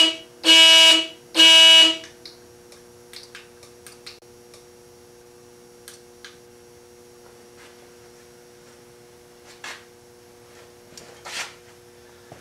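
Electric bicycle's remote-triggered alarm sounding a loud horn-like electronic beep, about one a second, and stopping about two seconds in. A faint steady hum and a few light clicks follow.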